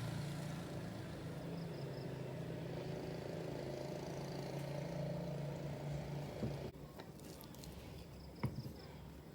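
A steady low machine hum that cuts off suddenly about two-thirds of the way in, leaving a quieter background with a few faint clicks.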